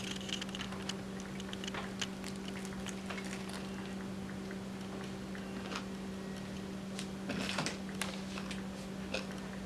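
Faint chewing and small mouth clicks of someone eating a bite of bacon cheeseburger, over a steady low electrical hum.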